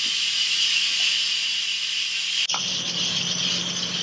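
Steam jetting from an Instant Pot's pressure-release valve turned to venting, a steady hiss as the pressure built up over a long cook is quick-released. About two and a half seconds in the hiss turns duller and lower.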